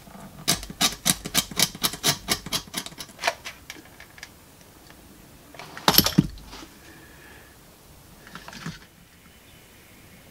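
A quick run of about a dozen small sharp clicks of metal and plastic as battery connectors are worked out of an old plastic calculator battery compartment. A louder clatter of small parts and tools comes about six seconds in, and a fainter one near the end.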